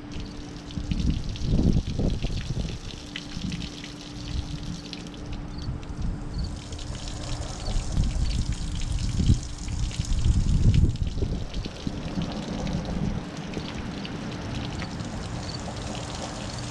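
Water from a garden hose running and splashing onto a concrete driveway, with a steady hum underneath and a few low gusts of wind on the microphone.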